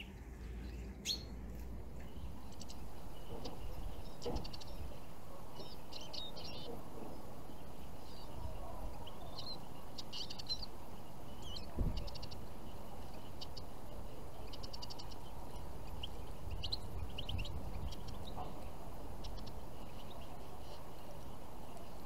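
Small finches, goldfinches and siskins, calling with short, high chirps and twitters scattered through, over a steady outdoor background. A single soft knock comes about 12 seconds in.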